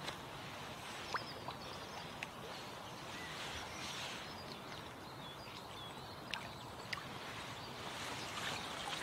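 Quiet outdoor ambience: a steady background hiss with a few sharp clicks and faint high bird chirps in the middle.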